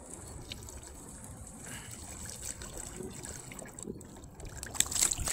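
Water splashing and trickling at the side of a kayak as a hooked bass is reeled in close, with louder splashes near the end.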